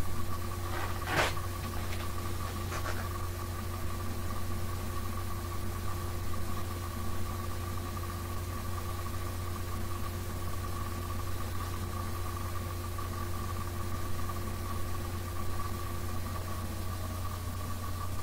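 Electric hand sander running steadily against a wooden board, with a couple of sharp knocks about a second and three seconds in; the motor's pitch shifts near the end.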